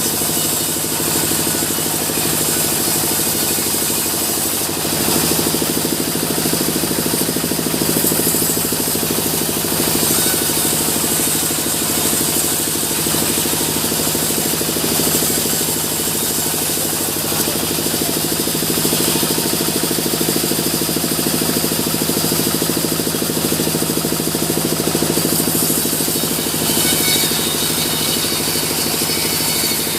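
Sawmill machinery running steadily with an even, engine-like drone, with a slight shift in its higher pitches near the end.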